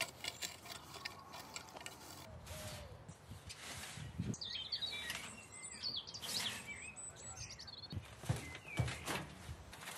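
A metal rake's tines clinking against stones in the soil for the first couple of seconds. Then birds chirping outdoors, with a few dull thuds as compost tips out of a wheelbarrow onto the soil, two of them close together near the end.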